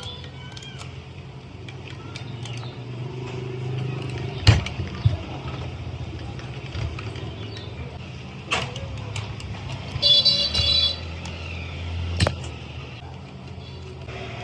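Road traffic with a low engine hum that swells as vehicles pass, and a vehicle horn sounding briefly about ten seconds in. Three sharp knocks, like metal being struck, are the loudest sounds.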